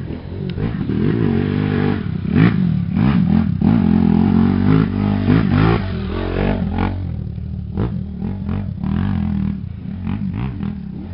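Off-road motorcycle engine revving up and down as the bike climbs a rutted dirt trail, loudest a few seconds in as it passes close by.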